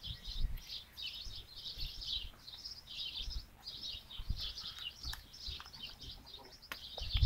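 Small birds chirping and twittering steadily, a continuous run of short high chirps.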